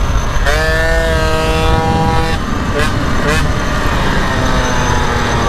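MBK 51 moped's liquid-cooled Bidalot 50 cc two-stroke engine with Bidalot RR expansion pipe running hard under way, under heavy wind rumble on the microphone. Its note climbs about half a second in, holds high for about two seconds, then drops away and runs on fainter.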